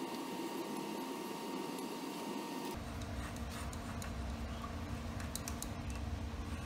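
A marking tool scratching along a steel plate while tracing around the edge of a paper template, with a steady shop background. The background changes abruptly about three seconds in, and a few sharp ticks come near the end.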